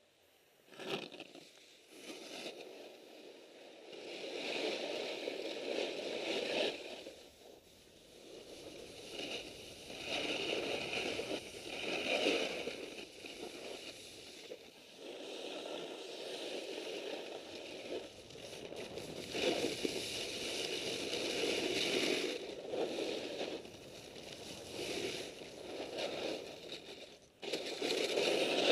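Snow crunching and scraping under a rider's edges on the way down a slope, swelling and fading in waves with each turn. It is picked up by an action camera's microphone muffled under layers of electrical tape, so there is no wind noise.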